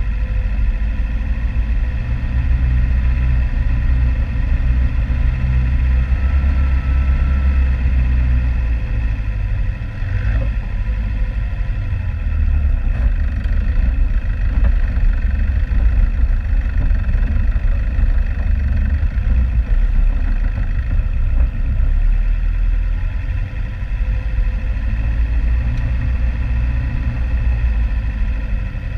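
Off-road vehicle's engine running, a steady low drone that rises and dips slightly in level.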